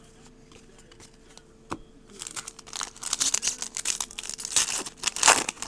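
A foil card-pack wrapper being torn open and crinkled. A few faint clicks come first, then about two seconds in a dense crinkling crackle starts that is loudest near the end.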